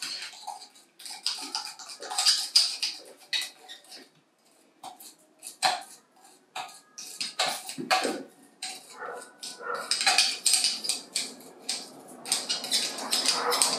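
A small tool clicking and scraping against a small ceramic cup while stirring clay-based engobe (slip), in an irregular run of sharp taps.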